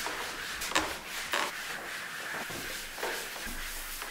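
Cloth wiping back and forth across a workbench top, rubbing oil into the surface, with a couple of light knocks about a second in.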